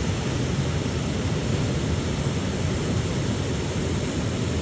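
Wind buffeting the microphone: a steady, rumbling noise with no distinct events.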